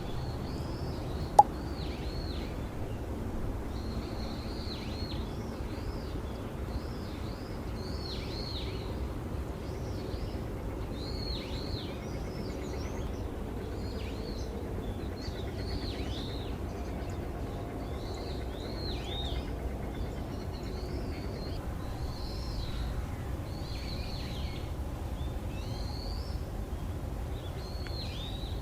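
Small birds calling over and over, short high notes that arch up and drop, about one a second, over a steady low rumble of outdoor background noise. A single sharp click sounds about a second and a half in.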